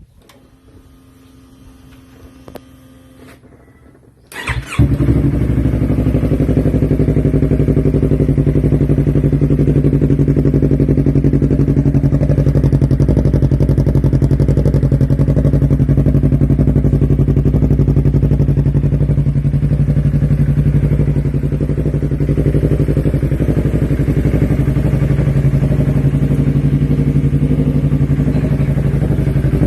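Yamaha R3 motorcycle's 321 cc parallel-twin engine through a Yoshimura R11 full-system exhaust. It starts up about four seconds in and then idles steadily.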